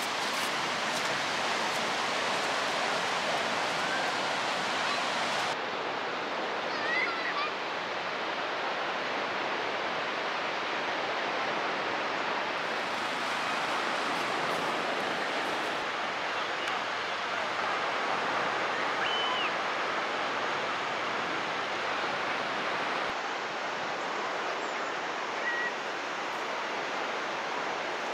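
Steady hiss of sea surf washing onto a beach, with a few faint short chirps now and then.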